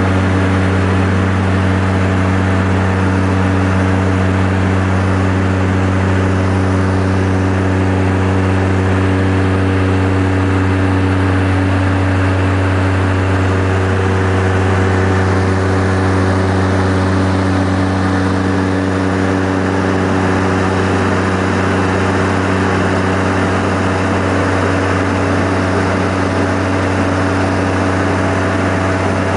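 Seaplane's propeller engines droning steadily in flight, heard from inside the cabin: a loud, even hum with a strong low tone and several fainter steady tones above it.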